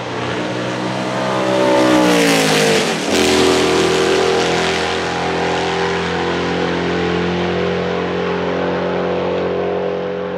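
Lola T70 Mk3 Coupé's Chevrolet V8 racing engine at high revs, passing close by with its pitch falling sharply about two to three seconds in. After that the engine note runs on steadily and slowly fades.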